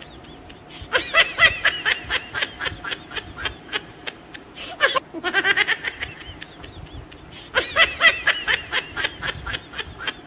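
Canned laughter: rapid, high-pitched giggling in bursts, the same laugh loop coming round twice.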